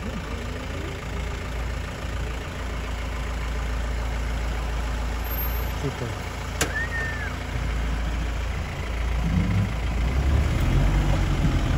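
Safari jeep's engine running with a steady low rumble, getting louder about ten seconds in. Faint voices and a brief high whistle-like call are heard about seven seconds in.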